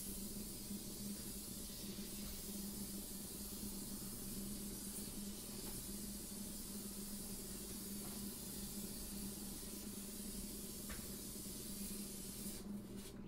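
Aerosol can of Gorilla spray adhesive hissing steadily as it is swept along a wall. The hiss stops briefly near the end. A steady low hum lies underneath.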